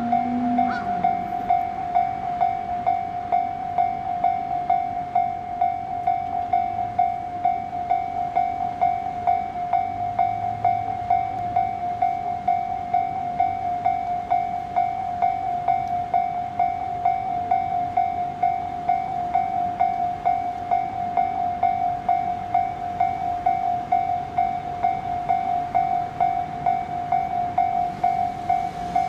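Japanese railway level-crossing warning bell ringing steadily, about two strikes a second.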